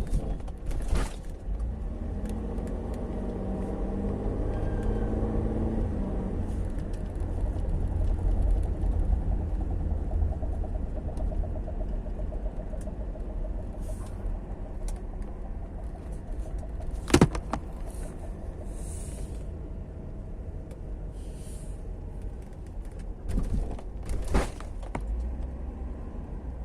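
Chevrolet Captiva 3.2 on the move, heard from inside the cabin: a steady low rumble of road and drivetrain, with the engine note rising and falling for a few seconds near the start. Sharp isolated knocks come through, the loudest about two-thirds in and a few more near the end. The owner reports a knock from around the transfer case when lifting off or braking between 30 and 20 km/h.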